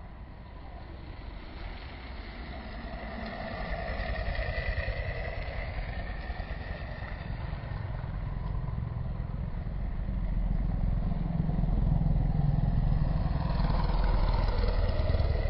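A motorcycle engine running, growing steadily louder through the second half as it draws closer.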